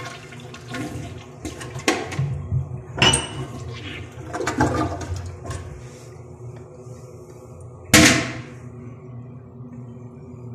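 Toilet flushing: water rushing and gurgling down the bowl with irregular splashes over a low rumble, easing off after about six seconds into a steadier low sound. A single sharp knock about eight seconds in is the loudest sound.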